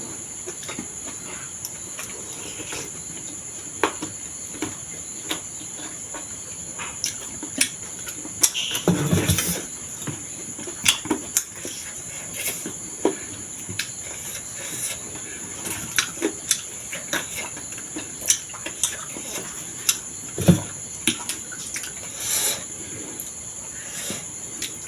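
Close-up eating sounds: scattered clicks and taps of a spoon on a bowl, chewing and slurping of thukpa noodle soup and momo, with a longer noisy slurp about nine seconds in. Behind them runs a steady high chirring of crickets.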